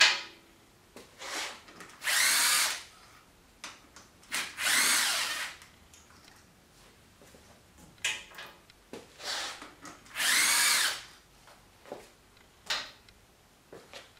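Handheld power drill/driver run in three main bursts of about a second each, the motor whine rising and falling, with shorter blips and small clicks and knocks of tools and parts between. It is backing fasteners out of a dirt-bike engine being torn down.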